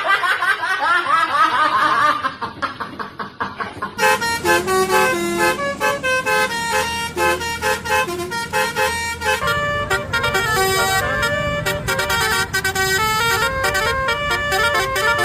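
A Basuri telolet multi-tone horn plays a tune. A rapid warbling run for the first few seconds gives way to a melody of stepped horn notes that changes several times a second.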